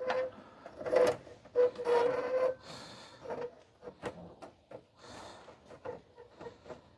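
Small metal parts of a cabinet cam lock clicking and scraping as the cam and its retaining bolt are fitted onto the lock, with a short squeak in the first couple of seconds.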